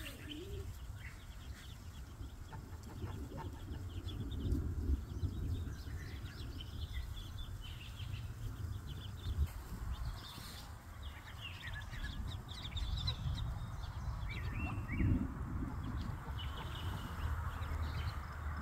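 Ducklings peeping in short high chirps throughout, with a few lower clucking calls from the Muscovy duck hen, over a steady low rumble.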